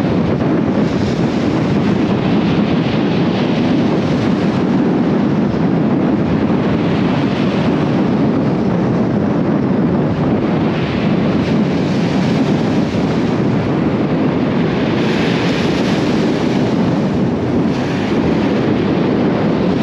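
Wind buffeting the microphone in a steady rumble, with a higher hiss of surf on shingle swelling now and then.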